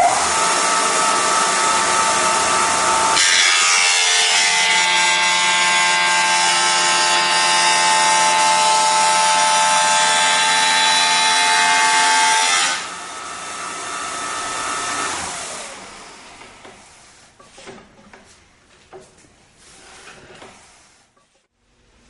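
Raimondi Bulldog bullnose machine, its 1-1/2 hp belt-driven motor starting up with a steady whine. About three seconds in, the sound thickens into a loud grinding as the 3/8-inch diamond mill wheel profiles the edge of a porcelain tile, for about ten seconds. Then the grinding stops and the motor winds down with falling pitch, followed by a few faint knocks.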